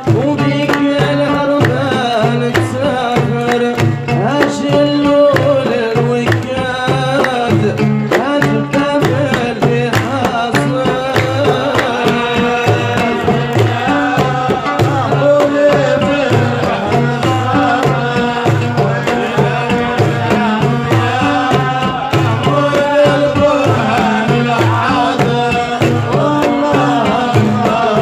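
Traditional Saharan tbel music: men singing over a steady beat on a large barrel drum, with hand claps and a long-necked lute.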